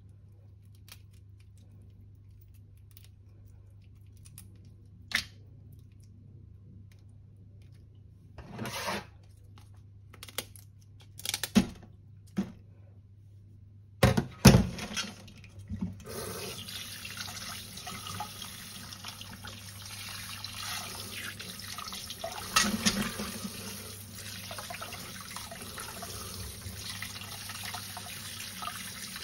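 Scattered clicks and knocks, then running water that starts a little past halfway and keeps going steadily, with a few clatters over it.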